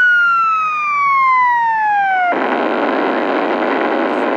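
A falling bomb-drop whistle sound effect keyed over a CB radio. It slides steadily down in pitch for a little over two seconds, then cuts off abruptly into a steady rushing hiss of radio noise.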